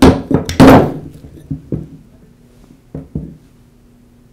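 Rubber mallet striking the threaded end of a Porter Cable 690 router's armature shaft, two sharp knocks in the first second, driving the armature out of the lower armature bearing in the motor housing. A few lighter knocks follow as the armature comes free and the parts are set down on the wooden bench.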